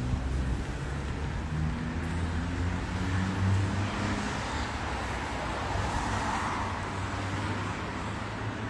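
Road traffic: a vehicle engine hums steadily, and a wider rush of tyre or traffic noise swells about six seconds in, as from a car passing, then fades.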